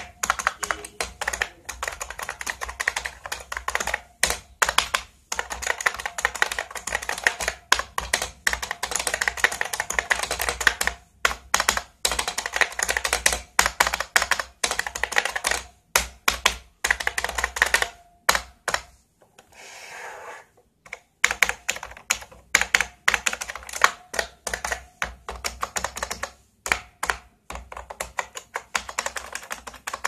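IBM Model M buckling-spring keyboard (1989) being typed on fast: a dense run of sharp, loud key clicks, with a short softer pause about two-thirds of the way through.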